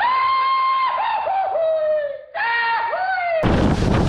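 A dubbed-in sound clip of a high, pitched voice-like tone: it holds one note, then wobbles and slides downward in several dips. It breaks off briefly a little after two seconds, then resumes with another downward wobble before cutting off abruptly; the wind noise is absent while it plays.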